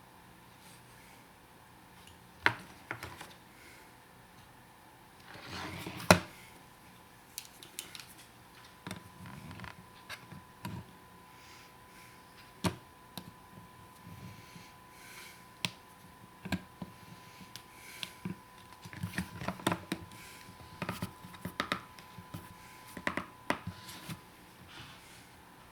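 Plastic and metal parts of a 2005 Toyota RAV4 sun visor's hinge mechanism being pried and taken apart by hand: scattered clicks and light knocks, with a sharp snap about six seconds in.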